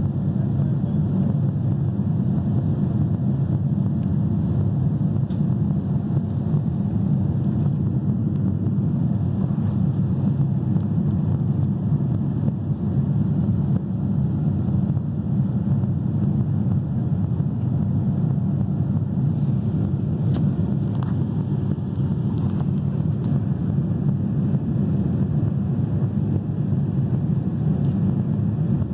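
Steady cabin noise inside a Boeing 787-9 in flight: an even, low rumble of its GEnx-1B engines and the airflow over the fuselage, heard from a window seat.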